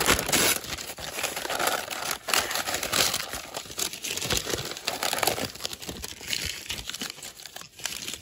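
Masking being peeled off a freshly spray-painted air-compressor part, with dense crinkling and tearing as it comes away and is crumpled up.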